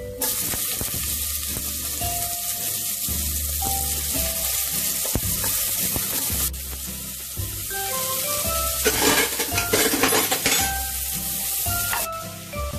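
Sliced onions sizzling as they hit hot oil and whole spices in an aluminium pressure cooker, the frying starting suddenly as they go in. Near the end a spatula scrapes and stirs them against the pot.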